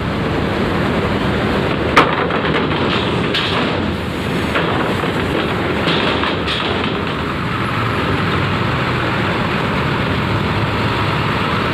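Large coach bus engine running as the bus drives past close by and rolls onto a ferry's steel loading ramp. A single sharp knock comes about two seconds in, with a few fainter knocks later.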